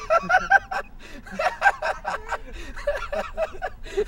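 People laughing, in quick repeated bursts.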